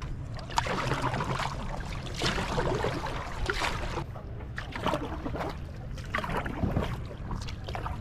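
Canoe paddle strokes: the blade dipping and pulling through salt water, a splash about every second and a half, over a steady low rumble.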